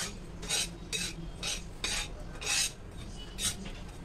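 Metal spoon scraping and stirring wheat flour around a steel kadhai as the flour is roasted in ghee, about two scrapes a second, somewhat uneven.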